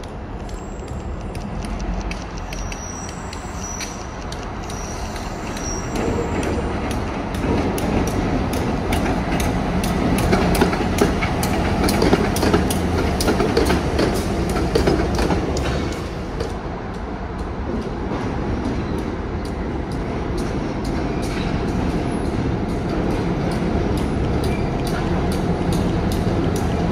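Freight train with a pair of EMD GP38-2 diesel locomotives moving, its two-stroke V16 engines running under a steady low rumble that grows louder and nearer from about six seconds in. Wheels click over rail joints throughout, with a few brief high wheel squeals a few seconds in.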